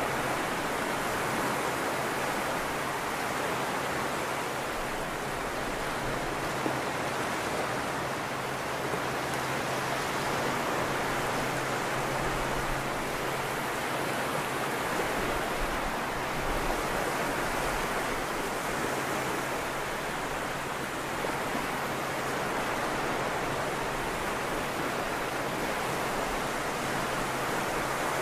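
Low waves breaking and washing over a flat sandy beach: a steady rush of surf that swells and eases slightly every few seconds.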